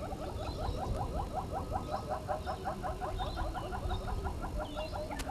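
An animal calling in a fast, even series of short falling notes, about six a second, stopping shortly before the end, with faint high bird chirps over it and one sharp click near the end.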